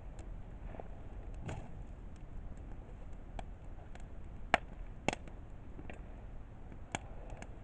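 Wood campfire burning, with sharp irregular crackles and pops over a low steady rumble; the loudest pops come about four and a half and five seconds in.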